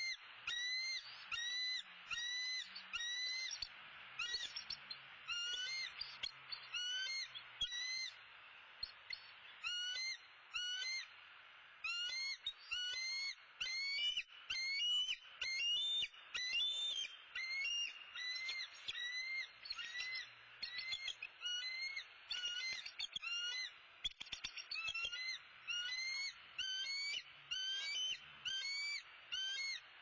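Bald eagles giving a long series of short, high-pitched chirping alarm calls at an intruder near the nest, one or two notes a second with a few short pauses.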